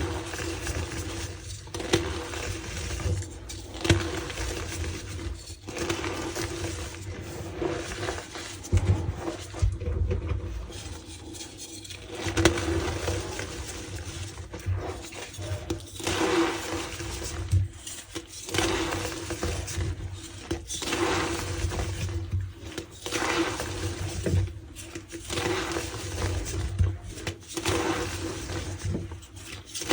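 Reformed gym chalk being squeezed and crushed by hand, crumbling and squeaking in a run of irregular bursts.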